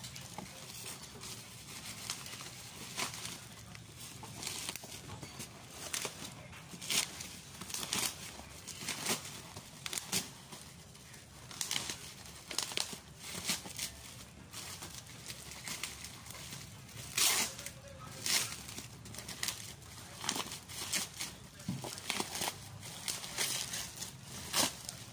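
Package wrapping being unwrapped by hand: plastic and paper crinkling and tearing in irregular rustling bursts.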